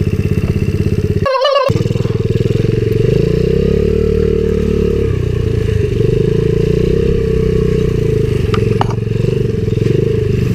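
Coolster 70cc pit bike's small single-cylinder four-stroke engine running while being ridden, its pitch rising and falling with the throttle, sounding muffled. The sound drops out briefly just over a second in.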